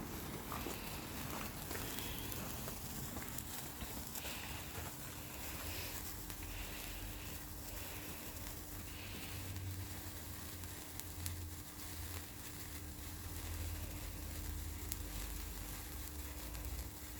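Handheld sparkler burning with a steady fizzing crackle and scattered fine pops, over a low rumble.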